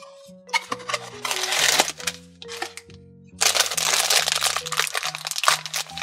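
A cardboard blind box is torn open with a few short rasps, then a plastic blind bag is crinkled and pulled open in a continuous, dense crinkling from about halfway through. Light background music with held notes plays underneath.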